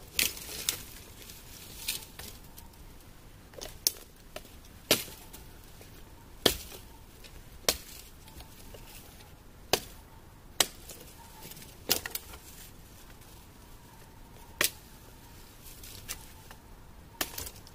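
Dry wood being chopped: about a dozen sharp, woody strikes at irregular intervals of one to two seconds.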